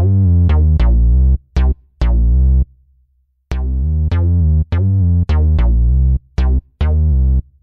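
Electronic background music: a run of synthesizer notes over deep bass, dropping out for about a second roughly a third of the way in.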